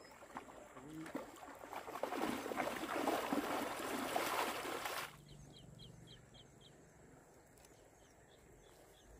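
Splashing water as a man wades through a shallow river, building up about a second in and cutting off abruptly about five seconds in. Afterwards a run of faint, short, high chirps.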